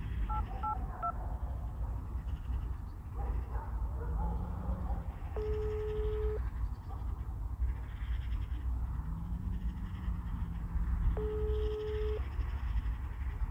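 Phone keypad tones, three short beeps as a number is dialled. Then the ringback tone of an outgoing call, ringing twice, each ring about a second long with a long gap between.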